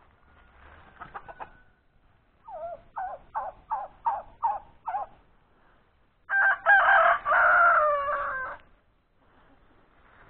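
Chickens calling: a run of six short, quick clucks starting about two and a half seconds in, then a rooster crows once, loudly, for about two seconds.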